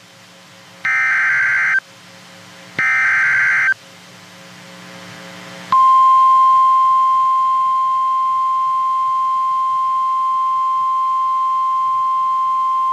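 NOAA Weather Radio Emergency Alert System signal: two one-second bursts of warbling SAME header data tones about a second apart, the last of the header's three repeats. About two seconds later a steady single-pitch 1050 Hz warning alarm tone starts and holds, heralding a new severe thunderstorm warning.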